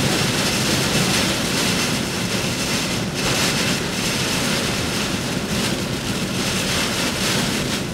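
Derecho wind and wind-driven rain blowing hard against a parked Jeep, heard from inside the cabin as a steady, dense rushing noise.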